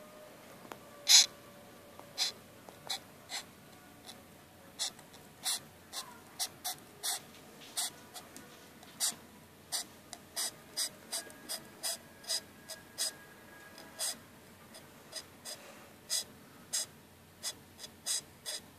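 A big black Christmas beetle hissing: short, sharp rasping hisses repeated irregularly, about one to two a second, the loudest about a second in.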